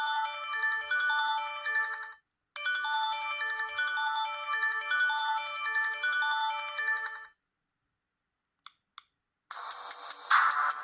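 Sony Ericsson W580i polyphonic ringtone playing a melody of short, bright notes. It breaks off for a moment about two seconds in, starts again, and stops about seven seconds in. After a pause come two short blips, then a different ringtone with a fast, regular pulse starts near the end.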